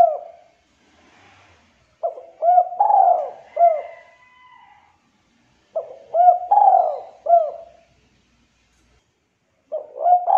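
Spotted dove (tekukur) cooing: a repeated phrase of about four short notes, the song type Indonesian dove keepers call "culhu kuk", given roughly every four seconds. Two full phrases fall in the middle, with the end of one at the start and another beginning near the end.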